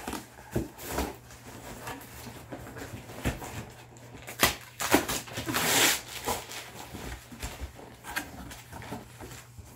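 Large cardboard box being handled and its packing tape cut with a knife: a string of knocks and scrapes, with a longer rasp a little past halfway.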